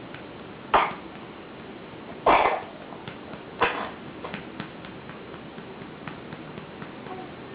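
Three short throaty vocal bursts, the loudest about two seconds in, then a few faint clicks.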